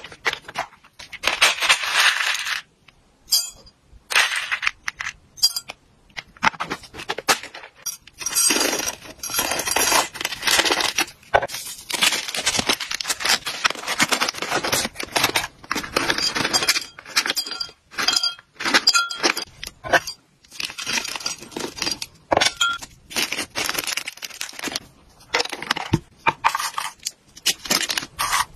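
Hands packing dry hamster treats: a treat pouch rustling and snipped open with scissors, and treats clinking and rattling in plastic containers. The sound comes in short noisy stretches and sharp clicks, with brief pauses.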